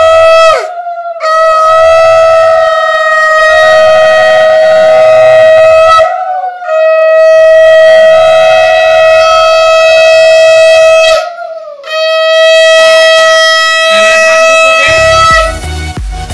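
Conch shell (shankha) blown in long, steady blasts: the end of one, then three more of about four to five seconds each with short pauses between, every blast ending with a drop in pitch. Music with a beat comes in near the end.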